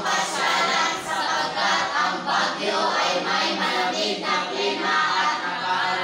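A class of students' voices together in unison, in phrases with brief breaks between them.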